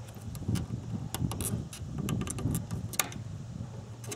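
Plastic clicks and rubbing as a fuel-line disconnect tool is pressed into a fuel-line quick connector on a fuel pump assembly and the line is worked loose, with one sharp click about three seconds in.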